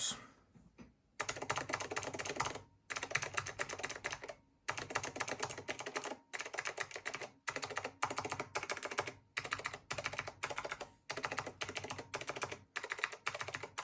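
Fast typing on a Leading Edge DC-3014 keyboard with blue Alps switches, fitted with thick cast-polyurethane Keymacs keycaps: runs of rapid keystrokes broken by short pauses. The keystrokes have a bassier sound than the keyboard's stock ABS keycaps.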